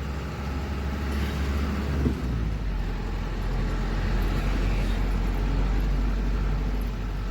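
Truck's diesel engine running with a steady low drone; the drone drops to a lower pitch about two seconds in.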